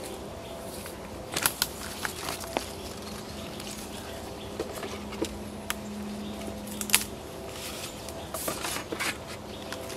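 Rustling of grass and dry brush with irregular sharp clicks and crackles as a person crouches and moves about in the vegetation, over a faint steady low hum.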